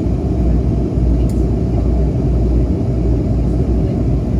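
Steady low rumble of a De Havilland Canada Dash 8 Q300 turboprop airliner in flight, even and unbroken.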